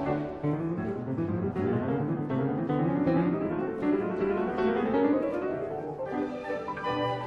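Background piano music: a run of notes climbing steadily in pitch, then settling into lower held chords near the end.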